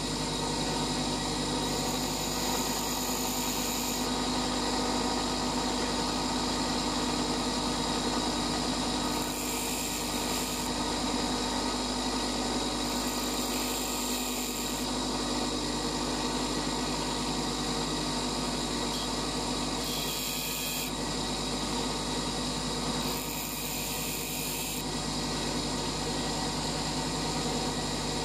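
Bench grinder running with a steady motor hum while a twist drill bit is ground against its wheel to sharpen it. The grinding rasp shifts a few times.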